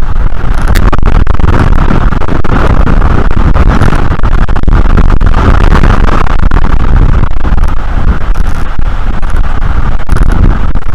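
Strong wind buffeting an outdoor nest-cam microphone: a loud, continuous deep rumble with scattered crackles.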